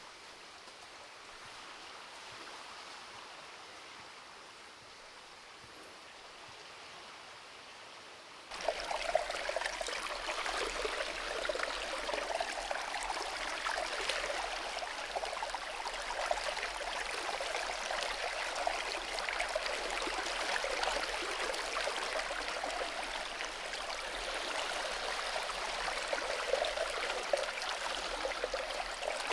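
Shallow forest stream running and babbling steadily over its bed. The sound steps up suddenly to a louder, fuller rush about a third of the way in and holds there.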